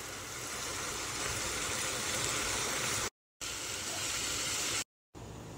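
Diced chicken and onion sizzling as they fry in a pan, a steady hiss, cut by two brief silences.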